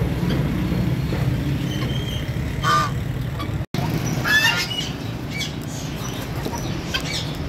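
Caged domestic fowl giving short, scattered squawks and calls over a steady low background rumble. The sound drops out for an instant just past halfway.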